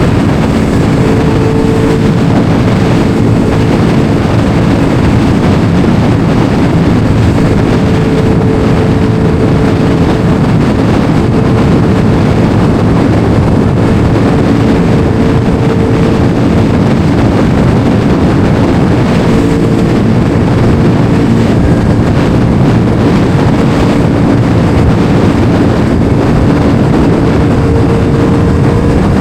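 Motorcycle engine running at a steady cruising speed, with heavy wind rushing over the microphone.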